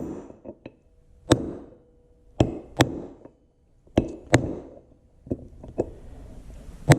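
Hammer tapping a new rear axle seal down into a tractor's rear wheel bearing retainer: about eight sharp knocks at uneven intervals, some with a faint metallic ring, working the seal in evenly until it seats.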